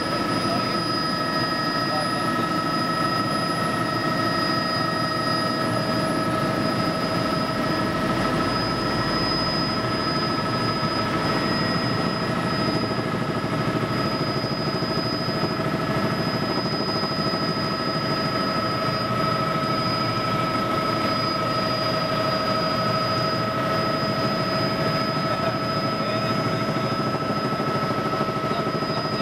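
Helicopter cabin noise in flight: steady engine and rotor noise with constant high-pitched whining tones over it.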